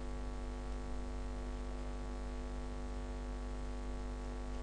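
Steady electrical mains hum with a faint background hiss.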